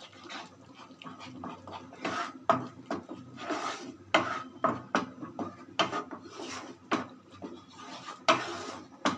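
Wooden spatula scraping and stirring thick masala paste in a non-stick frying pan, in repeated strokes roughly two a second.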